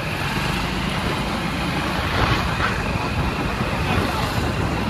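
Road traffic: motor vehicles running past with steady rumbling road noise, swelling briefly louder about two seconds in.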